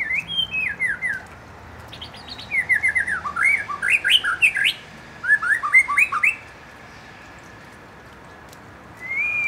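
White-rumped shama singing: three quick runs of sharp, slurred whistled notes, then a pause and a long drawn-out whistle that rises and then falls near the end.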